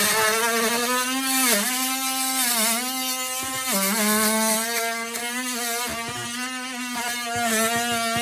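Oscillating multi-tool with a square box-cutting attachment running and cutting a hole for an electrical box in drywall. It gives a steady buzzing whine whose pitch sags briefly three times in the first four seconds as the blade bites.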